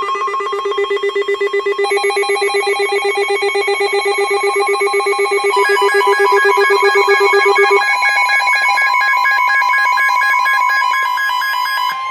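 Weather alert radio alarms beeping rapidly in several layered electronic tones, sounding for an incoming severe thunderstorm warning. Further beeping tones join about two and five and a half seconds in, and the lowest tone stops about eight seconds in.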